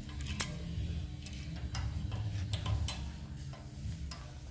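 Scattered light metal clicks and taps of small suspension hardware (bolt, washer and nut) being handled as a nut is threaded on by hand, with two sharper clicks about half a second in and near three seconds.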